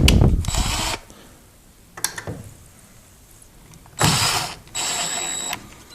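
Porter-Cable cordless impact driver hammering a 3-inch drywall screw through a knot in a 2x4: a loud rattling burst for the first second, a click about two seconds in, then two shorter bursts near the end, the last with a high motor whine as the screw seats.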